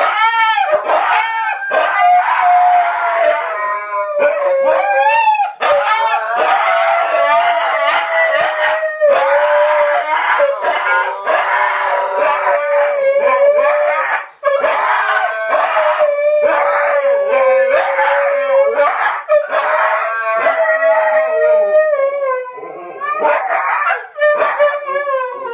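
Two huskies howling together in long, wavering, overlapping howls mixed with yips, one howl shrill and more like a screech.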